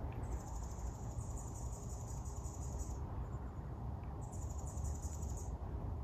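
An insect, likely a cricket, trilling high and fast in two stretches: one of about two and a half seconds, then a shorter one of about a second near the end. A steady low rumble runs underneath.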